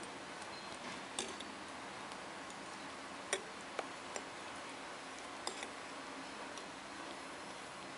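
Metal knitting needles clicking against each other as stitches are worked: a handful of sharp, irregular ticks over a faint steady hiss, the loudest a little past three seconds in.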